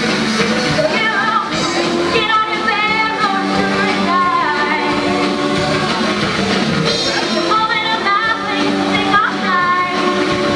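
Live rock band playing: a singer holding long notes with a wavering vibrato over electric guitar and drums.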